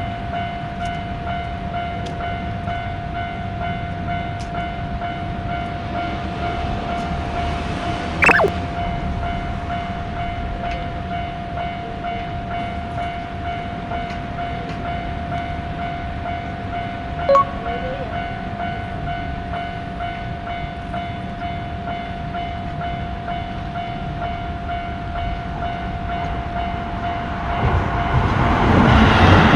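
Railroad crossing warning bell ringing steadily. A short falling whistle-like glide comes about eight seconds in and a smaller one about seventeen seconds in. A train's running noise swells over the last two seconds as it arrives.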